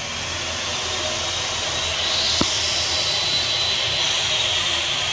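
A steady mechanical rushing noise with a thin high whine that swells slightly midway, and a single sharp click about two and a half seconds in.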